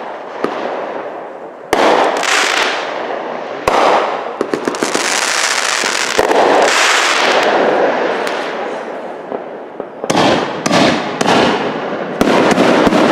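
Aerial fireworks bursting: sharp bangs a second or two apart, with crackling and hissing between them, then a quicker string of bangs from about ten seconds in.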